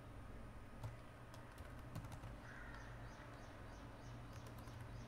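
Faint computer keyboard keystrokes: a few scattered clicks, then a quick run of light taps, over a low steady hum.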